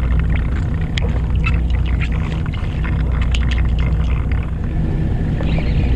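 Fishing boat's engine running with a steady low hum, overlaid in the middle by scattered light clicks and ticks from handling a baitcasting rod and reel.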